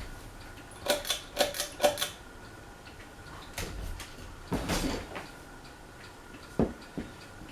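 Craftmade Phoenix ceiling fan running on low with a faint steady hum, over a series of sharp clicks and light knocks: a quick run of four about a second in, then a few single ones spread through the rest.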